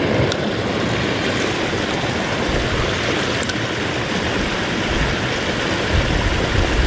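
Water gushing over a small dam and rushing down a shallow creek: a steady, loud rush.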